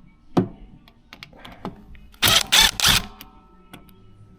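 A power driver loosening screws in three short bursts, with a single sharp knock about half a second in.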